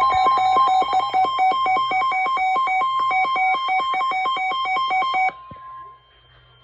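Emergency Alert System attention signal for a tornado warning: a loud electronic alert tone near 1 kHz, warbling rapidly against a second, lower pitch, that cuts off abruptly about five seconds in.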